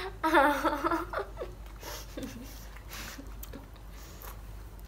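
A woman's voice briefly in the first second or so, then a quiet room with a few faint clicks.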